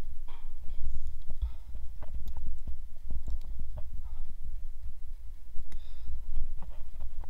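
A tree climber handling a rope and carabiners around a pine trunk: irregular clicks and knocks over a steady low rumble.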